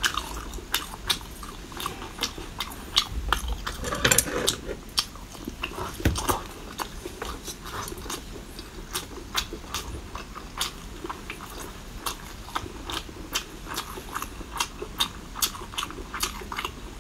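Close-miked eating sounds: a person biting and chewing soft seafood, with wet mouth clicks and smacks several times a second.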